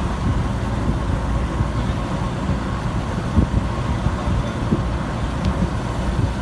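Rice combine harvester's engine running steadily under load, a continuous low rumble.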